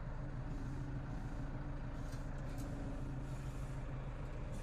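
Tractor engine running at a steady pitch, heard from inside the cab as a constant drone, with a couple of faint ticks about two seconds in.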